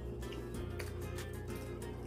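Background music with steady held tones over a low bass line, with scattered faint clicks through it.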